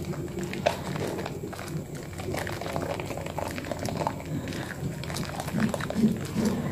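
Hands squeezing and kneading thick lather and soaked soap in a basin of soapy water. The foam squelches with irregular wet crackles and pops, a little louder near the end.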